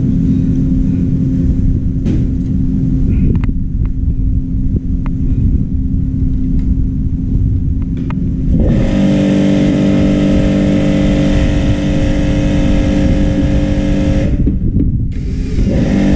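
Steady machine hum with a flat pitch and a few clicks. About halfway through, a louder, steady motor sound with a hiss takes over for some five seconds. It stops for under a second and starts again near the end.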